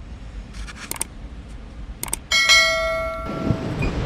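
A few clicks, then a single bell-like ding that rings and fades over about a second and a half, followed by a low rumbling noise.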